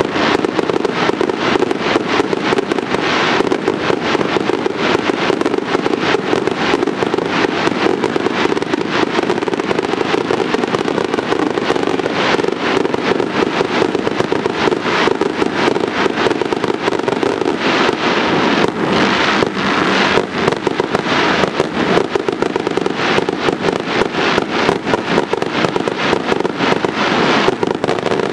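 Fireworks display: aerial shells bursting in a rapid, unbroken stream of bangs and crackle, with no pause between them.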